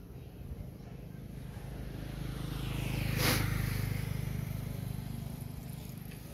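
A motor vehicle passing by: its engine hum grows louder to a peak about three seconds in, then fades away.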